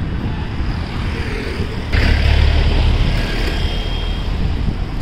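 Street traffic noise: a steady low rumble of road vehicles, growing louder about two seconds in.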